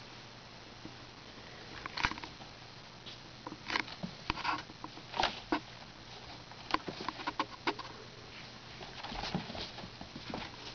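Irregular light taps, scratches and rustles as a kitten pounces on and claws at a mesh back-rest cushion lying on carpet, the frame and mesh shifting under its paws.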